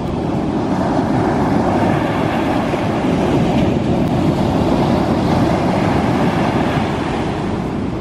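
Ocean surf breaking and washing up a sandy beach: a steady rushing of water, easing slightly near the end, with wind buffeting the microphone.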